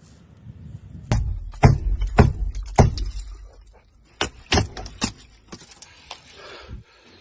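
Broken rubble and debris knocking and clattering underfoot in a series of sharp, separate impacts as someone climbs over a collapsed building, with heavy thumps from a handheld phone being jostled during the first few seconds.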